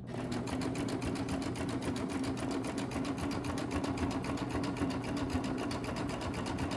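Baby Lock Triumph 8-thread serger sewing at a steady speed: a fast, even ticking over a steady hum. It starts right at the beginning.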